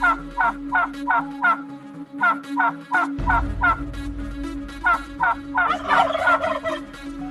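Turkey gobbling in three quick runs of rapid notes, the last run harsher and more jumbled.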